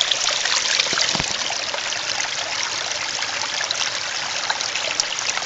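Small spring-fed stream trickling and splashing steadily over rocks close to the microphone.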